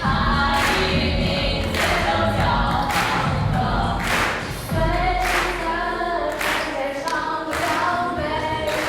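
A group of voices singing a song together, like a choir, in sustained sung phrases.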